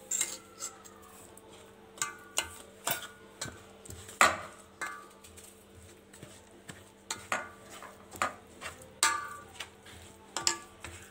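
Steel spoon stirring semolina and curd batter in a stainless steel bowl: irregular clinks and scrapes of the spoon against the bowl, some ringing briefly, the loudest about four seconds in.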